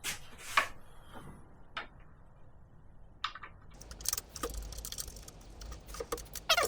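Small metal parts and a screw being handled and fitted on a table saw's steel plate: scattered sharp clicks and light rattles, sparse at first and coming thicker from about four seconds in.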